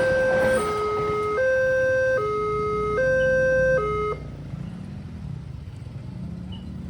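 Railway level-crossing warning alarm sounding an alternating two-tone electronic signal, each tone held for just under a second, then cutting off about four seconds in. A low rumble of road traffic is left underneath.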